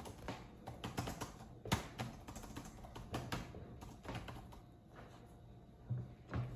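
Typing on a Lenovo laptop keyboard: irregular soft key clicks, with two dull knocks near the end.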